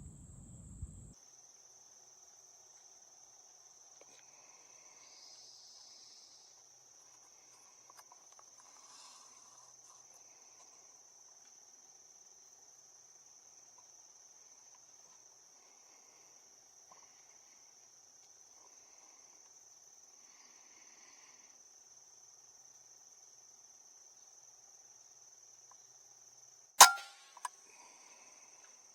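Steady high-pitched drone of insects in the trees, then near the end a single sharp shot from a pellet air rifle, followed about half a second later by a fainter click.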